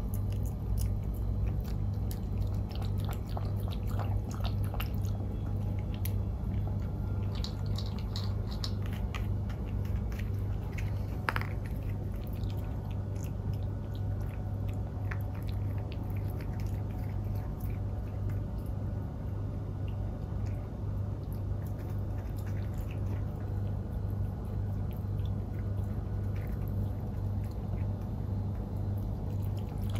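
Maltipoo puppy eating minced meat from a bowl: close, steady chewing with many small clicks. A steady low hum runs underneath.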